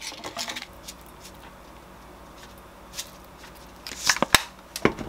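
Sesame seeds being shaken out of a container, with small rattles and a cluster of sharp clicks and taps of the container about four seconds in and again near the end.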